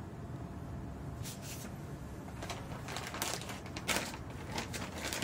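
Plastic bag crinkling and paper rustling as a tool is unwrapped by hand: irregular crackles, the loudest about three and four seconds in, over a steady low room hum.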